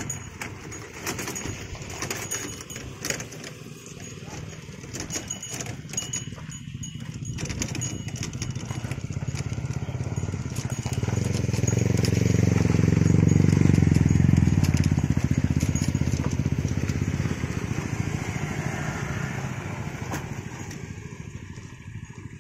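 Small motor scooter engines crossing the railway tracks, one passing close by: the engine sound builds to its loudest about twelve to fourteen seconds in, then fades away. Scattered clicks and rattles in the first several seconds.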